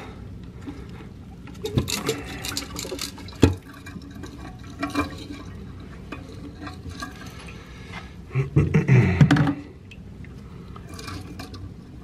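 Water sloshing and running in a toilet tank and bowl, broken by knocks and clatter of hands working the flapper and chain inside the tank. The water supply is shut off. A trickle that goes on with the supply off is what the repairer puts down to a warped, leaking flapper.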